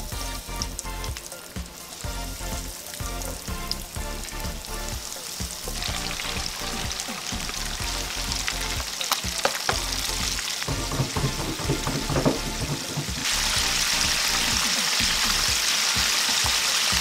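Flour-and-cornstarch-coated chicken pieces deep-frying in hot oil in a wok: a sizzle that grows steadily louder and is loudest over the last few seconds, with a few clicks of tongs against the pan. Background music with held notes is heard during the first few seconds.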